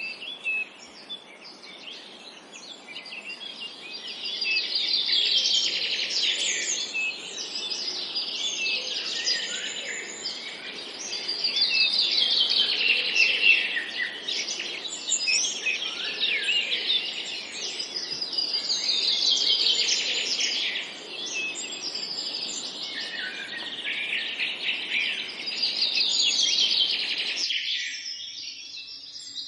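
Songbirds chirping and singing, with a fast trilled song phrase repeating about every seven seconds. A steady low rushing noise underneath cuts off suddenly near the end.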